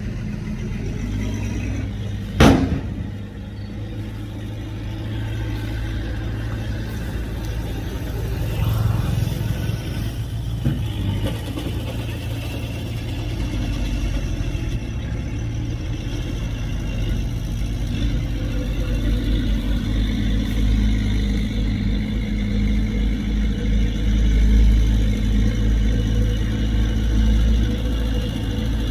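Heavy diesel engine running steadily, its low note growing stronger through the second half. A single sharp bang comes about two and a half seconds in.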